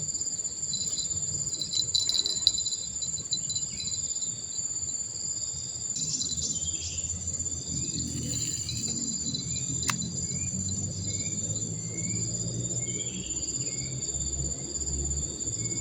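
Steady high-pitched drone of insects chirring. A run of short rising chirps repeats about twice a second through the second half.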